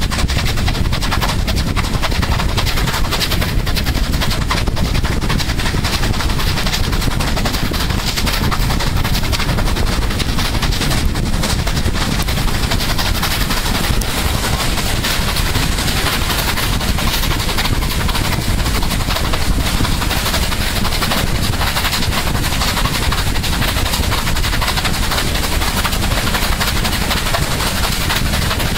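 Steam locomotive working hard at speed, its exhaust beats coming fast and steady over the rumble and rattle of the train, heard from an open carriage window with wind rushing over the microphone.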